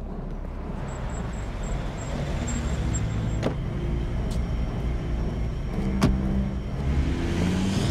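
Street traffic with a car engine idling close by, a steady low rumble, with two sharp clicks about three and a half and six seconds in.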